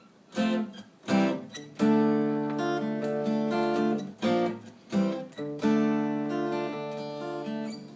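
Acoustic guitar strumming the introduction to a song: a few short strums, then chords left to ring for a second or two each.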